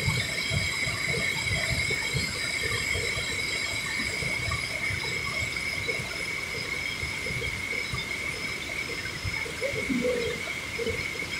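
Muddy floodwater of a swollen hill river rushing over a low weir, a steady turbulent rush with irregular low rumbling. A steady high-pitched whine runs over it.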